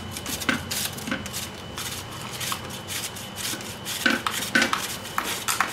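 A partly peeled cucumber being grated on a flat handheld metal grater, rasping strokes about twice a second.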